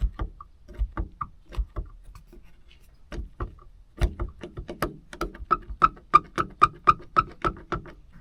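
Repeated light metallic tapping during hand-tool work on the hardtop catch lock, each tap with a brief ring. The taps are irregular at first, then settle into a steady run of about four a second in the second half.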